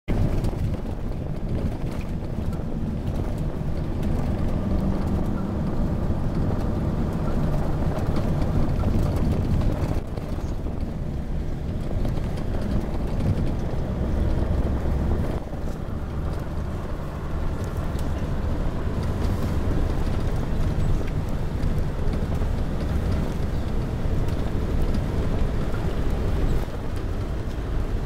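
A bus driving along a gravel track, heard from inside the cabin: the engine and road noise make a steady low rumble.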